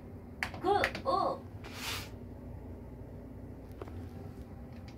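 A click from a key on a TJ Media S70F karaoke machine's button panel, followed by two short pitched sounds that bend up and down, then a brief hiss about two seconds in. After that only a low steady hum and a few faint clicks.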